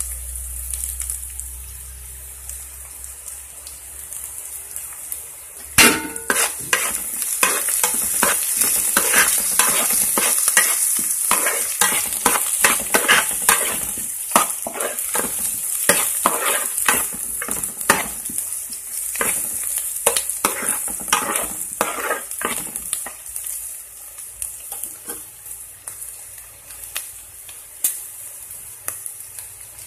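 Chopped onions and green chillies sizzling in hot oil in a metal pan. From about six seconds in, a utensil knocks and scrapes against the pan as the onions are stirred, and the sizzle grows louder. Near the end the stirring stops and the sizzle goes on alone, quieter.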